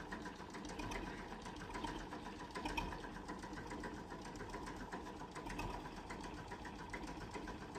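A small engine running steadily, with a rapid ticking.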